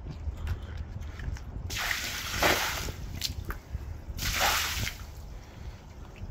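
Water splashing out of a dog's water bowl as it is emptied, in two bursts: a longer one about two seconds in and a shorter one about four seconds in.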